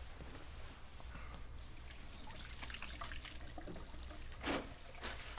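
A thin trickle of liquid: a man urinating into a toilet. It runs over a low steady hum, and a brief louder sound comes about four and a half seconds in.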